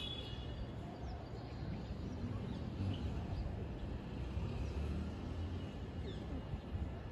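Outdoor city ambience: a low, steady rumble with a few faint, short bird chirps scattered through it.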